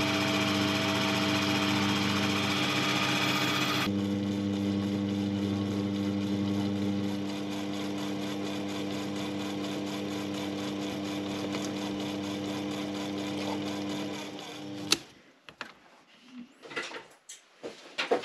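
Sherline bench lathe running with a steady motor hum while a twist drill in the tailstock chuck drills into the spinning metal workpiece; the drilling hiss drops away about four seconds in, leaving the lathe turning. Near the end the lathe stops with a sharp click, followed by a few light knocks and rustles of handling.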